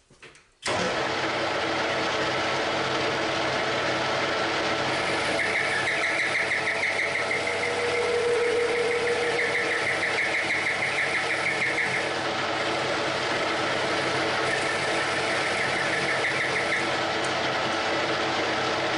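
Metal lathe switched on about a second in and running steadily under power, with a higher rasping sound in three stretches as a hand tool works the spinning workpiece.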